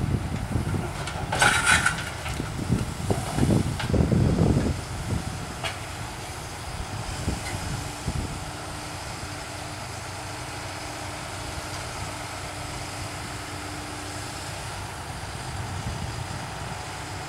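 Excavator with a thumb handling broken asphalt: irregular clattering and heavy thuds for the first five seconds or so, with a sharp clatter about one and a half seconds in. After that the excavator's diesel engine runs with a steady rumble.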